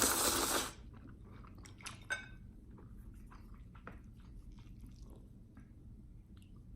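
A person chewing food close to the microphone, with many small wet mouth clicks. There is a short loud rush of noise at the very start, and a single ringing clink about two seconds in.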